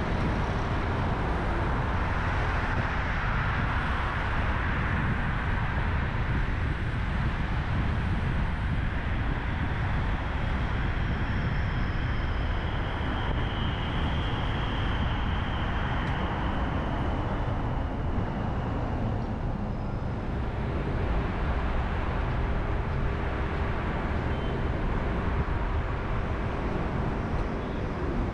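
Car driving on a road: a steady low rumble of engine and tyre noise with a hiss, and a faint high whine for a few seconds midway.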